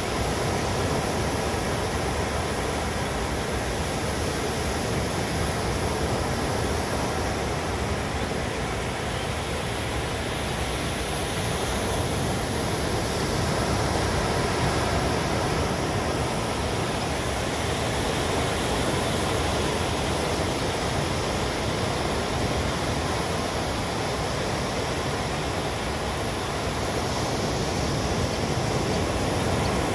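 Sea waves breaking and washing on a shore in a steady roar of surf, swelling slightly a couple of times.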